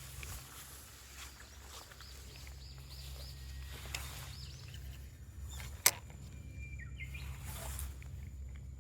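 Outdoor ambience with songbirds chirping, including a quick run of short rising-and-falling notes, over a steady low hum. One sharp click a little before six seconds in is the loudest sound.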